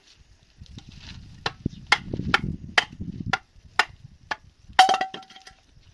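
A hammer striking wood in a quick series of sharp knocks, about two a second, one of them followed by a short metallic ring, over a low rumble in the first half.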